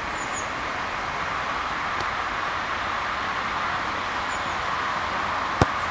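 A football kicked once, a single sharp thud near the end, over a steady background hiss with a few faint high chirps.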